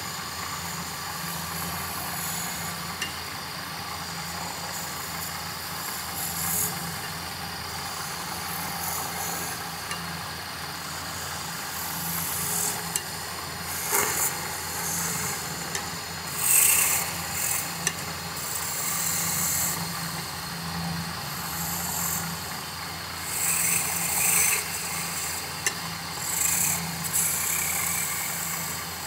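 Wood lathe running with a steady hum while a hand-held turning tool cuts into the spinning wooden goblet blank, giving repeated bursts of scraping cutting noise as the tool bites. The cutting is loudest a little past halfway and again near the end.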